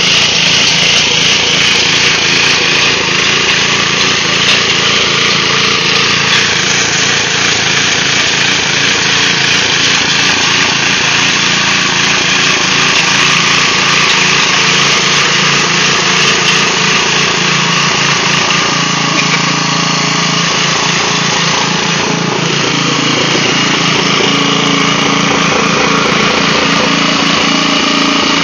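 Small gasoline engine of a 1989 Troy-Bilt Pony rear-tine rototiller running steadily under load as the tines churn through garden soil. Its note shifts a little about twenty seconds in.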